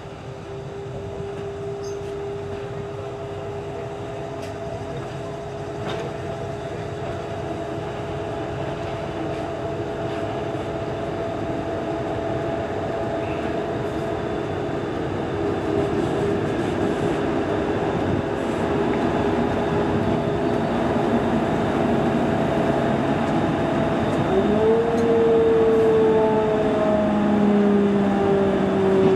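The 1933 electric locomotive T8 of the La Mure railway running slowly on the track, with a steady whine over the rumble, growing louder as it comes closer. Near the end the whine rises briefly in pitch and then slides down.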